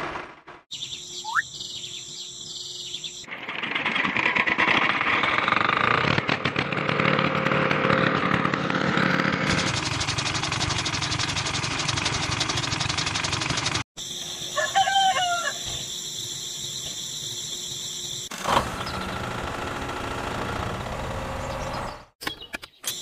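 Miniature chaff cutter running and chopping hand-fed grass stalks, a dense whirring that turns into a fast even buzz near the middle. The sound cuts off abruptly, and a rooster crows once soon after.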